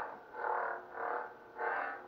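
Lightsaber hum from a ProffieOS sound board, swelling into a swoosh with each swing, about two swings a second.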